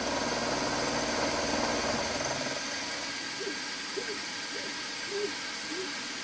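Milling machine spindle running with a small end mill taking a light pass along a slot in a conrod blank. It is a steady mechanical whine, and the lower hum under it drops away about two seconds in.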